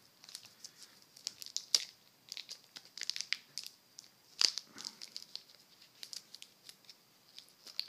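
Packaging of trading cards crinkling and rustling as it is handled, in scattered, irregular crackles and light clicks, with the sharpest ones about two seconds in and again about four and a half seconds in.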